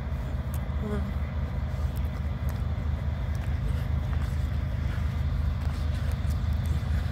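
Diesel freight locomotives approaching, a low engine rumble growing steadily louder.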